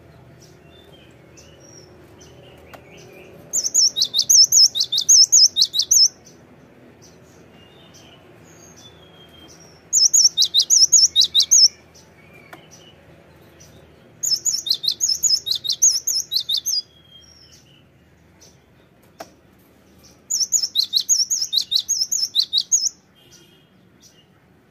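Cinereous tit (gelatik batu) singing in four loud bouts of rapid repeated high notes, each lasting two to three seconds, with faint short calls in between.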